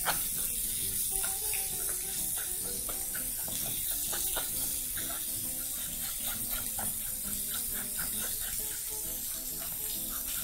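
A metal spoon pressing and scraping soft avocado through a wire-mesh sieve, in repeated irregular strokes.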